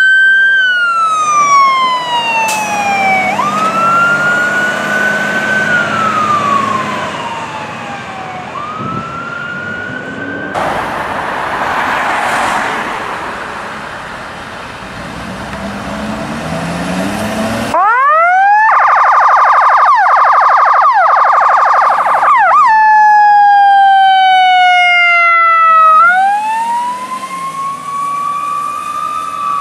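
Fire truck sirens wailing, the pitch sweeping up and down in long glides. About 10 seconds in there is a few seconds of rushing noise. About 18 seconds in the sound switches abruptly to a fast warbling yelp, then returns to slow falling and rising wails near the end.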